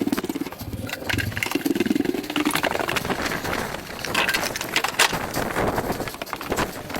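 A man breathing hard in heavy, rough exhales, with scattered knocks and clatter from carrying junk.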